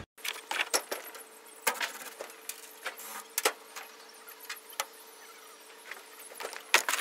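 Scattered light clicks and knocks from hands working on a pickup truck's cab roof and centre brake light, over a faint steady hum.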